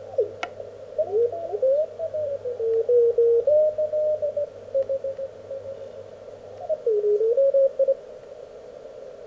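Elecraft K1 QRP transceiver's receiver audio as it is tuned across the 17-metre band: band hiss narrowed by the CW filter, with Morse tones sliding in pitch and breaking on and off as the tuning knob turns.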